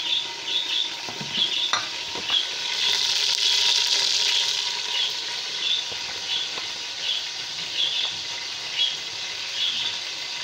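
Chicken pieces sizzling as they fry in melted smen (clarified butter) in a stainless-steel pot, the sizzle swelling louder a few seconds in. A spoon stirs the pieces with short scraping strokes about once a second, with a few knocks against the pot.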